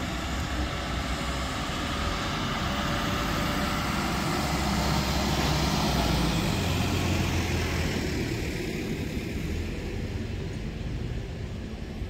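Case 590 backhoe loader's diesel engine running as the machine drives by close, growing louder to a peak about halfway through, then fading as it moves away.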